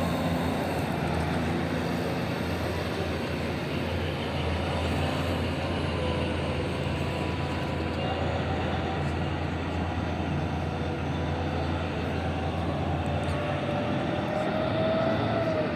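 Heavy diesel mining machinery running steadily, with a low engine drone and a faint whine that rises near the end.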